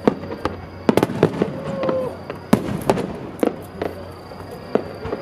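Aerial firework shells bursting in quick succession: about ten sharp bangs at uneven spacing, with crackle between them.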